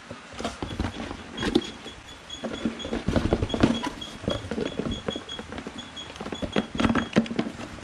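Handling noise of a corded jigsaw being packed into its cardboard box: irregular knocks, clicks and rustles of plastic against cardboard.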